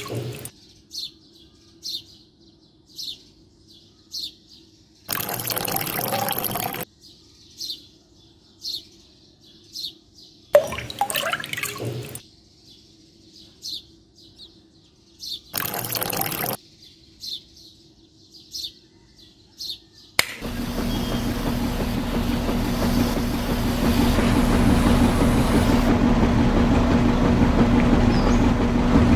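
A bird chirps about once a second, broken by three short bursts of rushing noise. About two-thirds of the way through, the small battery-powered DC motor of a miniature concrete mixer switches on and runs steadily with a low hum and a rattle, turning the drum loaded with gravel and sand.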